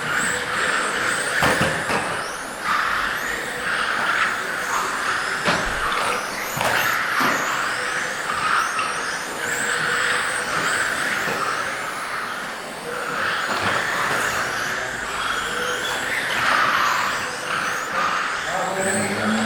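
Several electric 1/10-scale GT RC cars with 17.5-turn brushless motors racing on the track, their motors whining up and down in short glides as they accelerate and brake, over a steady rush of tyre noise. A few short knocks sound, about a second and a half in and again around five to seven seconds in.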